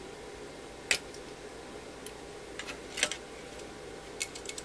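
Scattered small clicks and taps as a circuit board and its edge and components knock against a metal instrument chassis while being worked out sideways, over a faint steady hum.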